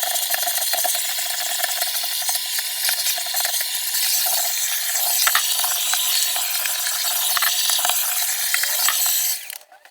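Vacuum cleaner running with a steady hiss and many small clicks and rattles, stopping shortly before the end.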